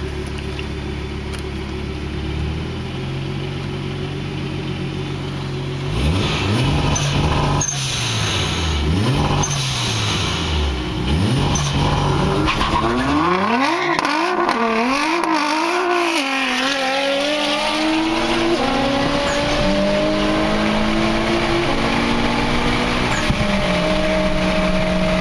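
Turbocharged four-cylinder engine of a Mitsubishi Lancer Evolution IX heard from inside its cabin: idling, then revved up and down repeatedly, then pulling hard under full acceleration with the pitch climbing steadily, broken twice near the end by upshifts.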